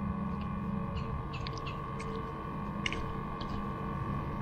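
Steady mechanical hum holding several fixed tones, with a few faint light clicks.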